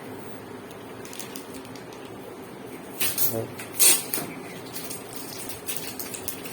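Plastic clicks and clatter from a front-loading washing machine's detergent drawer being handled, a few sharp knocks about three seconds in and the loudest just before four seconds, over a steady low hum.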